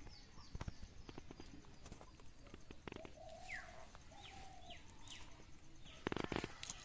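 Small birds chirping with short falling calls, over scattered knocks, with a quick cluster of knocks about six seconds in.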